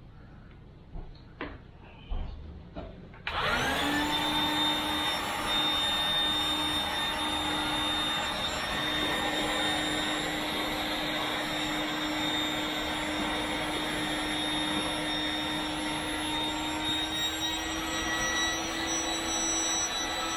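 A few handling clicks and knocks, then an electric air pump switches on about three seconds in, spins up briefly and runs steadily, inflating the inflatable kayak boat through a hose.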